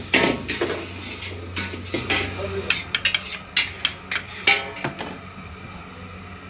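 Metal utensils clinking and scraping against a frying pan and a ceramic serving plate: a run of sharp knocks and scrapes that stops about five seconds in, leaving a low steady hum.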